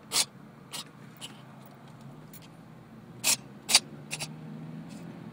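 A cat in a sneezing fit: about six short, sharp sneezes, the loudest right at the start and a close pair a little past halfway, with fainter ones between.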